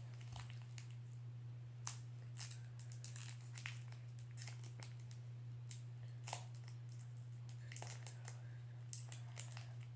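Foil Pokémon card pack wrapper crinkling and tearing as it is opened, in scattered faint crackles, over a steady low hum.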